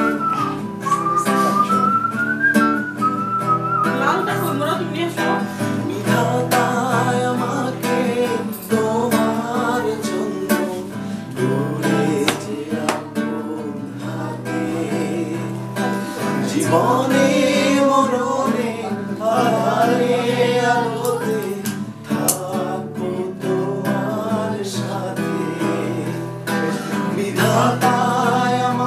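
Classical acoustic guitar strummed to accompany voices singing a song. A whistled melody line glides over it in the first couple of seconds.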